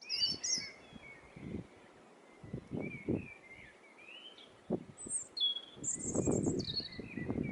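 Small birds chirping and singing at dawn: short high chirps and trills, several at once. Irregular low rustling noises come and go beneath them and grow louder and steadier near the end.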